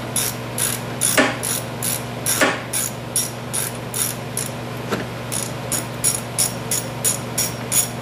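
Socket ratchet wrench clicking in quick, even strokes, about three clicks a second, as it unscrews the spark plug from a snowblower's Tecumseh two-stroke engine; the clicking stops near the end.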